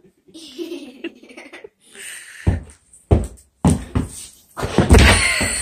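A small child on inline skates thumping on a wooden floor: three heavy thumps about half a second apart, then a louder, longer burst of clattering noise near the end, with some laughter.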